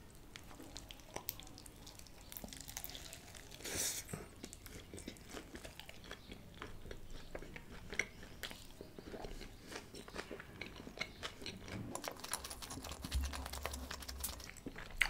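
A person chewing a mouthful of egg paratha roll filled with paneer, chicken and raw onion, close to the microphone. Many small clicks, with one louder burst about four seconds in.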